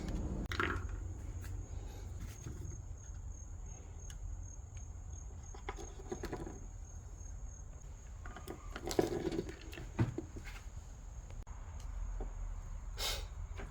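Hands taking apart a cordless hair clipper and swapping its battery: scattered small clicks, scrapes and rattles of the case and parts, with a sharp click about ten seconds in, over a steady low hum.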